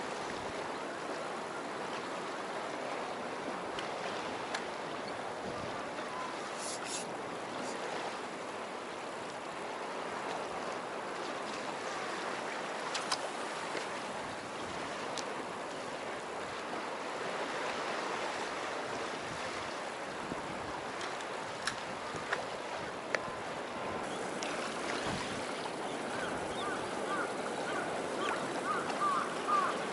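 Steady wash of sea water along the shore, with a few faint clicks; near the end a faint repeated chirping joins in.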